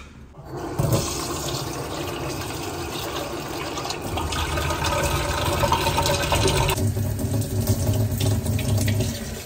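Kitchen tap running water into a bowl of uncooked rice to wash it. The water starts about a second in, and its sound changes around four seconds and again around seven.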